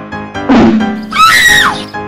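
Edited-in prank sound effect: a loud blast about half a second in, then a high scream that rises and falls away, repeating the same pair heard just before, over background music.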